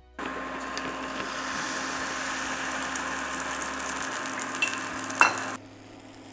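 Kefir pancake batter sizzling in hot sunflower oil in a stainless steel skillet, a steady frying hiss with a couple of sharp clicks near the end. The sizzle cuts off abruptly about five and a half seconds in.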